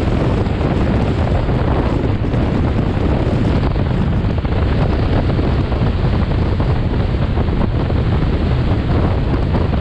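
Steady, loud rush of wind buffeting the microphone of a camera mounted on the hood of a moving car.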